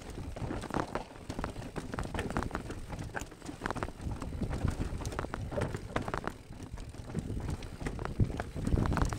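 Mountain bike riding down a rocky trail: tyres rolling and knocking over loose stones, with the bike rattling in a dense run of irregular clicks and knocks over a low rumble.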